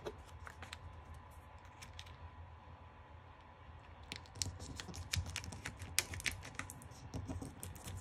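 Small taps and crackles of fingers pressing a vinyl decal onto a resin domino and peeling the clear transfer tape back off it. A few clicks at first, then a quieter spell, then a dense run of crackling clicks from about four seconds in.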